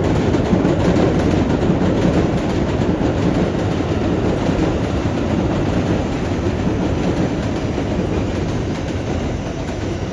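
A train running past close by, a loud steady rumble of wheels on rails with faint clicks from the wheels, easing slightly near the end.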